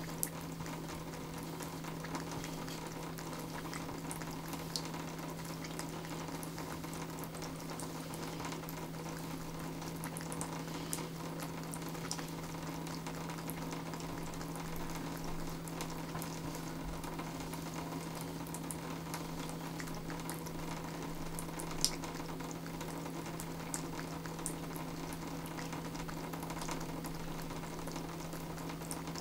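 Thin stream of water running from a bathtub faucet and splattering into the tub, a steady hiss with a low hum underneath. A few faint ticks come here and there, one sharper one near the end.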